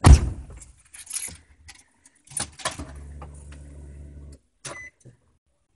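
Sounds inside a vehicle cabin: a heavy thump at the start, then a few clicks and knocks, then a steady low hum for about a second and a half that stops abruptly, and one more click.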